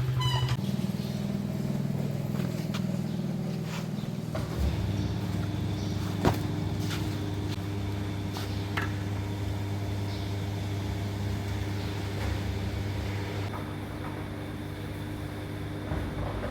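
Motorbike engine running steadily during a ride; its note drops and settles lower about four and a half seconds in, with a few light clicks over it.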